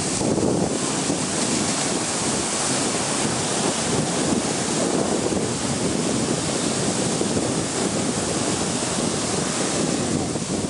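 Ocean surf breaking and washing in a steady roar, with wind buffeting the microphone.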